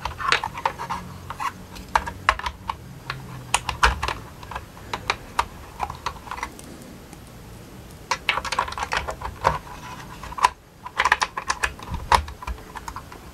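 Small hard-plastic clicks and knocks as Playmobil figures are pushed into the seats of a toy car. They come in quick irregular runs, with a short lull about halfway through.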